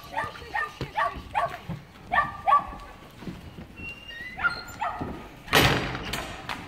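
Dog giving short, eager, whining yips, about three a second, in two runs, as it strains on the leash at the start of a scent-work search. About five and a half seconds in comes a loud rushing noise lasting under a second.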